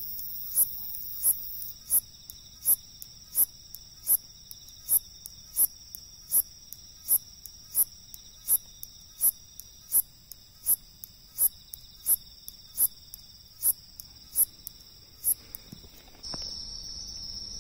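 Hatake-no-umaoi katydid (Hexacentrus unicolor) singing: short, very high chirps repeated evenly, about three every two seconds, over a steady high background drone. Near the end the chirps stop and a louder steady high trill takes over.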